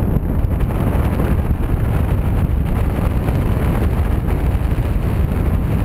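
Wind noise from the airflow of a paraglider in flight buffeting the camera microphone: a loud, steady low rumble with no break.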